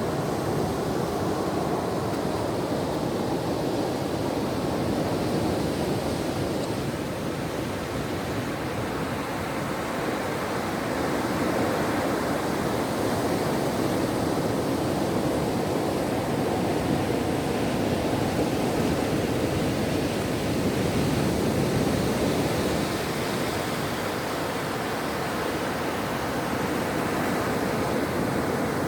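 Ocean surf washing onto a beach: a continuous rush of breaking waves that swells and eases slowly every several seconds.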